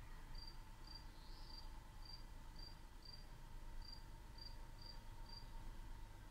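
Insect chirping: short, high chirps repeating about twice a second, with a faint steady hum underneath.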